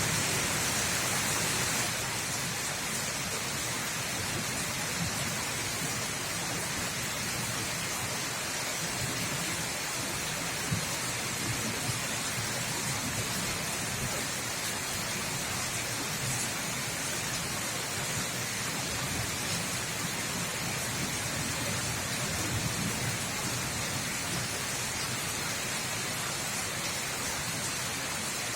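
Rain falling steadily, a dense even hiss of drops on surfaces, a little louder for the first couple of seconds.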